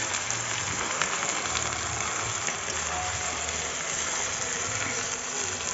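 Meat, potatoes and vegetables sizzling as they fry in a kadai, with a steady frying hiss and a few light scrapes and clicks of a metal spatula stirring them.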